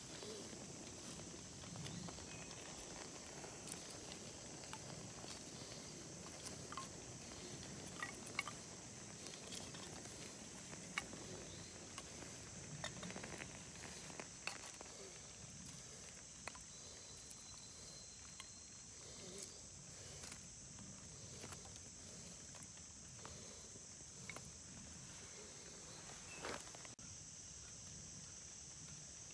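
Faint steady insect chorus, a high even buzz, with scattered light clicks and snaps from a small split-kindling fire catching and sticks being laid over it.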